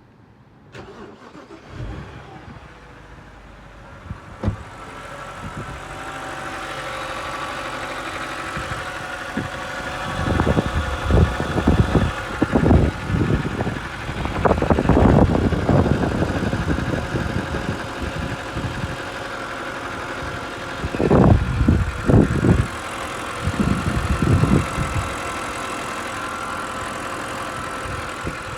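BMW N52 inline-six engine idling with a steady whine, which the owner traces to the oil filter housing, and louder irregular bursts in two stretches.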